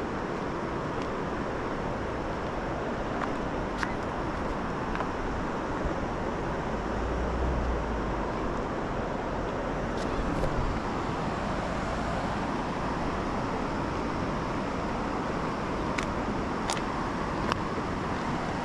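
Steady outdoor rushing noise, with a few sharp clicks scattered through it and a low rumble swelling briefly in the middle.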